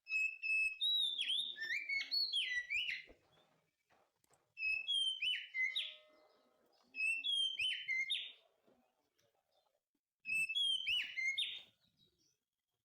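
A songbird singing a short phrase of whistled, gliding chirps four times, with pauses between the phrases.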